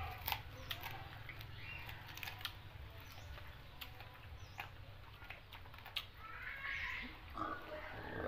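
Eating by hand from a metal tray: scattered sharp clicks and mouth smacks from chewing and fingers picking at the food. Short animal calls sound in the background, the clearest near the end, over a steady low hum.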